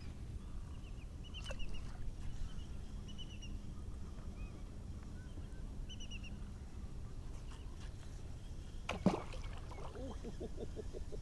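Quiet marsh ambience with a steady low wind rumble and scattered short bird chirps. A sharp knock comes about nine seconds in, followed by a quick run of short, lower bird calls.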